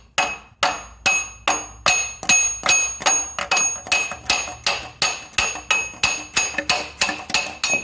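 Hammer blows on a metal V-belt pulley, being knocked off its shaft on an engine without a pulley puller. The strikes are steady, about three a second, each with a short metallic ring.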